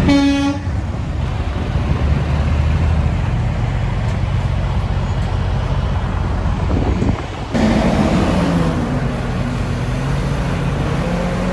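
A semi truck's air horn gives a short blast at the very start, then heavy diesel truck engines run steadily as trucks roll past. The sound changes abruptly about seven and a half seconds in.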